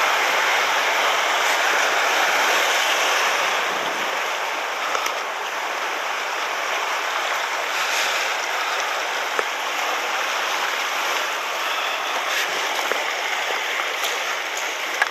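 Surf washing and foaming over shoreline rocks, a steady rushing wash that is a little louder in the first few seconds.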